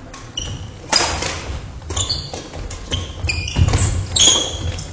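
Badminton rackets striking a shuttlecock in a fast doubles rally, a sharp smack about once a second, with short high squeaks of sneakers on the wooden gym floor and the hall echoing.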